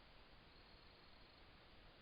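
Near silence: a low, even hiss of background noise, with a faint thin high tone lasting about a second.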